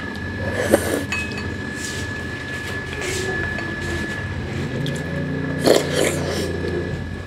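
Eating sounds: a metal spoon clinking and mouth sounds of taking in and chewing a spoonful of noodles, with two sharper sounds about a second in and near six seconds in. A steady low hum runs underneath, shifting slightly higher about five seconds in.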